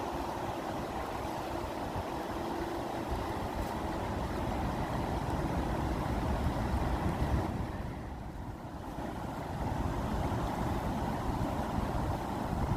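Steady rushing water, an even, deep noise with no distinct drops or splashes, easing briefly about eight seconds in.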